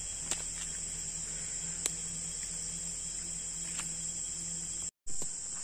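Steady high-pitched chorus of insects shrilling, with a few faint ticks. The sound cuts out for an instant near the end.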